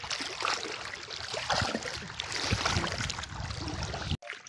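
Water sloshing and splashing as someone wades through thigh-deep wetland water, with irregular small splashes. It cuts off abruptly near the end.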